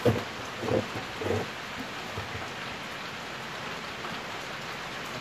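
Steady hiss of light rain falling. A few short, louder sounds come in the first second and a half.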